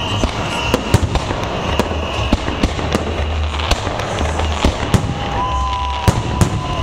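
Fireworks salute going off: a rapid, irregular string of sharp bangs and crackles over a constant low rumble.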